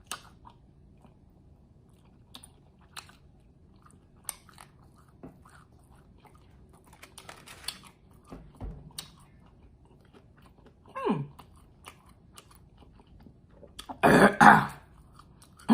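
Close-up chewing and crunching of fried chicken wings, with small wet clicks and bites spread through. Near the end comes a short, louder cough-like burst.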